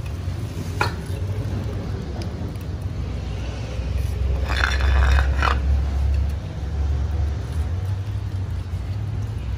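A steady low rumble, with a brief click under a second in. About halfway through, a cat gives one drawn-out meow of about a second.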